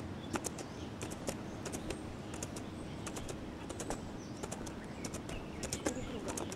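Horse cantering on a sand arena: a run of uneven hoofbeats and sharp clicks over a steady outdoor background.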